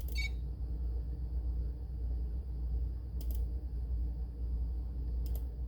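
Three sharp computer-mouse clicks a couple of seconds apart over a steady low hum.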